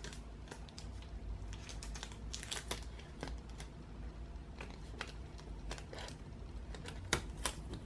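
Irregular light clicks, taps and crinkles as a cat paws and noses at crumpled scraps of tape on a desk, with two louder clicks near the end, over a low steady hum.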